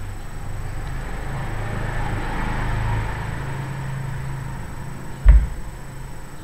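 A vehicle passing, its noise swelling and fading over a low rumble, and a single sharp thump, the loudest sound, about five seconds in.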